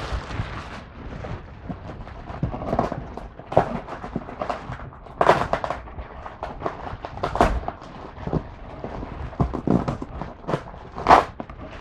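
Plastic bags and paper wrapping crinkling and rustling in irregular crackly bursts as hands rummage through the foam-packed box.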